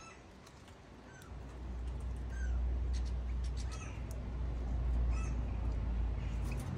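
European goldfinches giving short, scattered chirping calls, each a quick gliding note. A steady low rumble starts about a second in and is louder than the calls.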